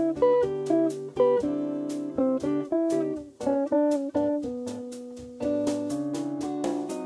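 Background music: a plucked guitar playing a melody of quick notes over held chords.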